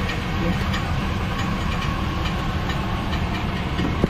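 Chevy Silverado pickup engine idling, with a faint metallic ticking about twice a second and a sharp click near the end. The mechanic takes it for the flywheel hitting the starter, metal to metal.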